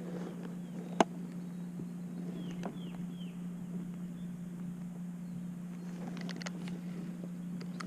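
Quiet lakeside ambience under a steady low hum, with one sharp click about a second in and a short run of faint, downward-sweeping bird chirps a little later.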